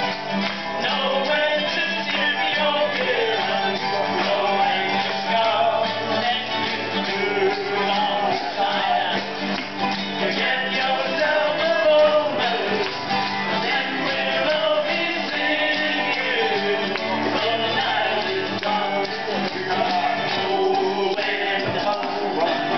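Acoustic country-folk band playing live: strummed acoustic guitars with harmonica and the jingling of a lagerphone, at a steady level throughout.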